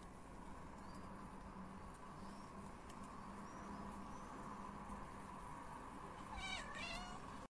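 A domestic cat gives one short, wavering meow near the end, over faint steady background noise.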